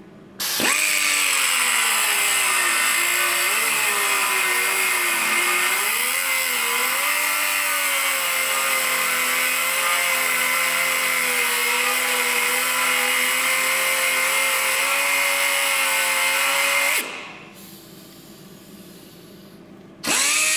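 Angle grinder with an abrasive disc grinding an X into the head of a steel frame rivet, a stage in knocking the rivets out. Its whine sags as the disc bites and climbs back. It runs about sixteen seconds, stops, and starts again near the end.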